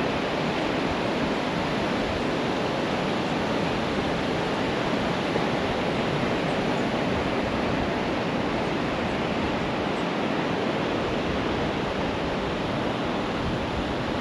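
Ocean surf breaking and washing up the beach: a steady, even hiss of waves with no change in level.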